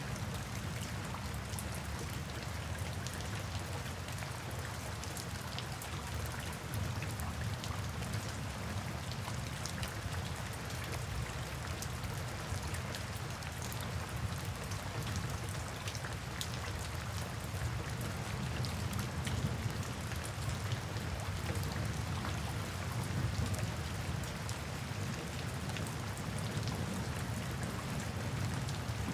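Steady rain falling, with many distinct drops ticking against surfaces over a constant low rumble.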